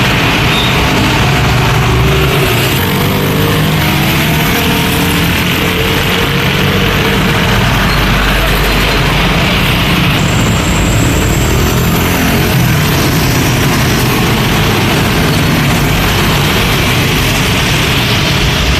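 Busy road traffic: motor scooters, cars and trucks driving past, a steady mix of engines and tyre noise. The pitch of the passing engines slides up and down a few seconds in.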